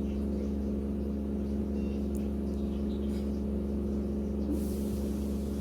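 A steady low machine or electrical hum with several evenly spaced overtones, unchanging throughout. A faint hiss comes in near the end.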